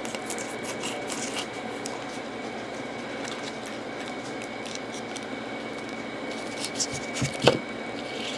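Plastic jerky-stick wrapper being handled and pulled apart: scattered faint crinkles, then a louder cluster of crackles ending in a sharp knock about seven and a half seconds in, over a steady room hum.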